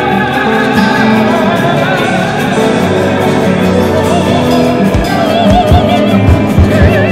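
Classical orchestra playing with a high voice singing with wide vibrato over the strings, and a few low drum strokes in the second half.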